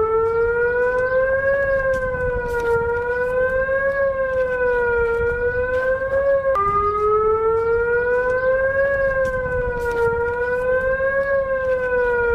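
Emergency alert siren tone wailing, its pitch sliding slowly up and down in a steady cycle of about two and a half seconds. The tone cuts and restarts abruptly about six and a half seconds in.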